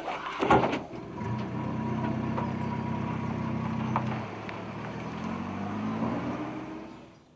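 A vehicle door slams about half a second in, then the vehicle's engine runs steadily. Near the end the engine's pitch rises and the sound fades out.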